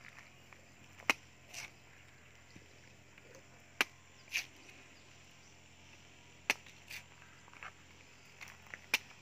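Machete chopping into the husk of a green young coconut: sharp single cuts about two and a half seconds apart, the strongest four times, with lighter cuts between.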